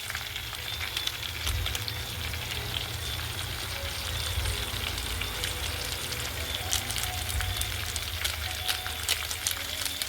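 Food frying in a pan: a steady sizzle with frequent small crackles and pops, over a low rumble.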